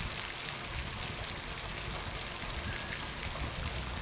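Steady hiss of water splashing, from a floating pond skimmer converted to a fountain as its jet sprays up from the pond surface.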